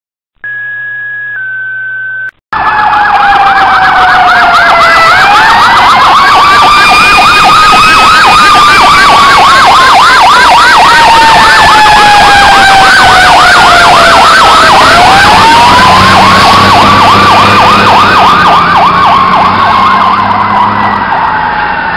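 Fire engine passing with its sirens going, very loud: an electronic siren in a fast yelp over a Federal Q2B mechanical siren that winds up, slowly coasts down, then winds up again. A short electronic two-tone beep comes before it, in the first two seconds.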